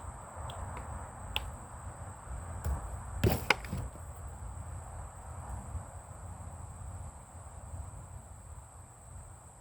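A few sharp knocks and clicks, the loudest a quick cluster about three seconds in, over a steady high chirring of insects.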